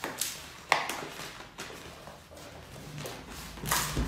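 Handling noises as goods are packed: a few sharp clicks and knocks, the loudest about three-quarters of a second in, then a short rustle with a dull thud near the end.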